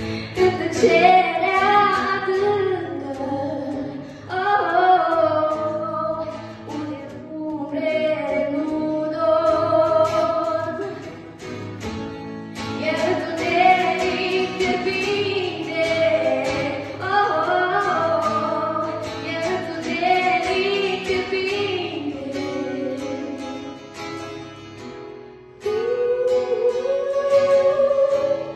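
A girl sings a song into a microphone, accompanied by acoustic guitar, in phrases of a few seconds with short breaths between; a louder sung phrase begins near the end.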